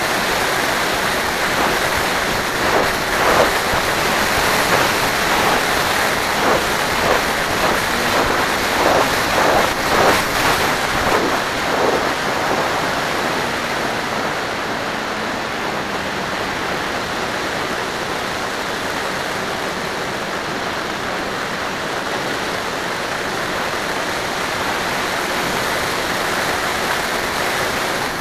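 Wind rushing over the onboard camera microphone of an FPV model aircraft in flight, with a faint steady motor-and-propeller hum underneath. The rush swells in gusts between about 2 and 12 seconds in, then settles to a steadier level.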